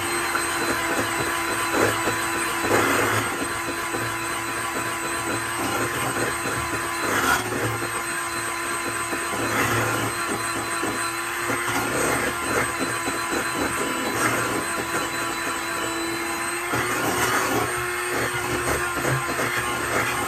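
Electric hand mixer running steadily at speed, its motor whining on one steady tone, with irregular ticks of the metal beaters knocking against the stainless steel bowl as they whip thick cream.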